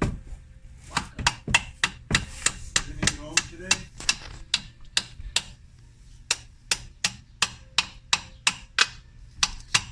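Hammer striking a screwdriver again and again to drive it through a stuck spin-on oil filter, about four blows a second, with a short pause a little past halfway. The filter is too tight to remove by hand, so the screwdriver is being punched through it to lever it off.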